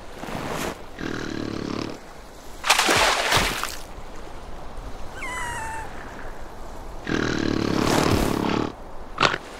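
Cartoon seal vocal effects: several long, rasping, snore-like breaths, with a short falling whistle between them.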